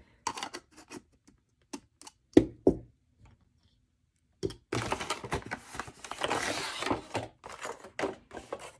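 Hard plastic lightstick parts (globes, bases and handle) being picked up and set down on a cloth-covered table: a few separate knocks and clicks, the loudest about two seconds in. About four and a half seconds in, a few seconds of rustling and scraping as the parts and the diamond tray are shifted about.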